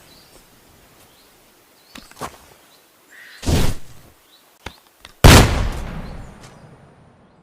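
Two gunshots from a firearm: a first report about three and a half seconds in, then a louder, sharper shot a couple of seconds later whose echo trails off over nearly two seconds. A few light clicks come before the shots.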